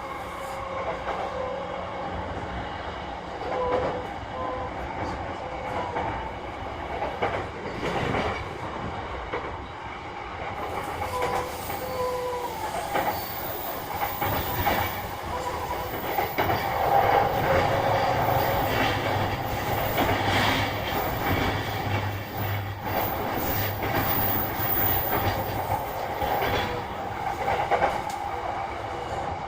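JR E233 series 3000 electric multiple unit running, heard inside the car: a steady rumble of wheels on rails with clicks from rail joints, and short gliding whining tones. It gets louder about halfway through.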